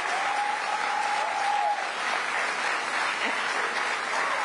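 Crowd applauding and cheering steadily at a political rally. A single held high note rises above the clapping over the first two seconds.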